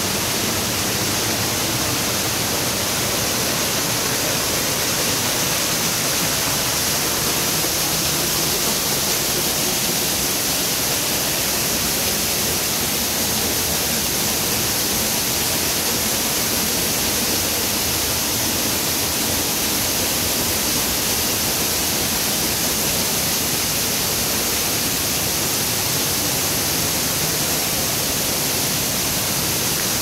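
A waterfall of about 30 m, heard close up from behind the falling water, making a loud, steady, unbroken rush.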